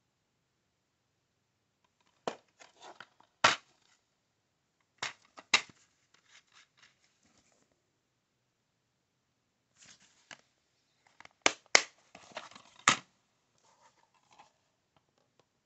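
Plastic DVD keep case being handled, opened and snapped shut: a series of sharp plastic clicks and snaps with light rustling between them, the loudest snaps a few seconds before the end.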